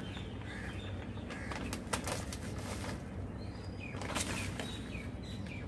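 Crinkling of a plastic flour bag as soil is tipped from it into a plastic pot and pressed down by hand, with a few sharp crackles about a second in, around two seconds in and near four seconds. Faint bird chirps and a steady low hum lie underneath.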